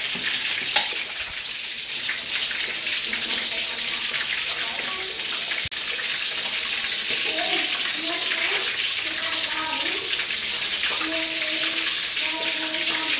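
A steady hiss with faint ticks in it, and faint voices in the background from about seven seconds in.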